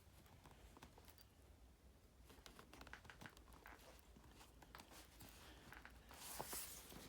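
Faint handling sounds of leather lace being pulled through and tightened: scattered small clicks and rustles, with a brief rasp about six seconds in.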